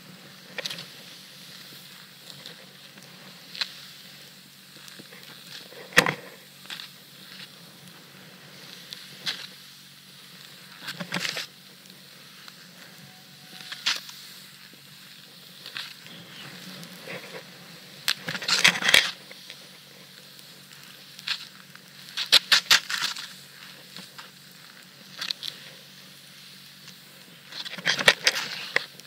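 Snowboard riding through powder snow: a steady hiss of the board sliding, broken by repeated crunching, scraping bursts as it turns and its edges bite, with one sharp click about six seconds in.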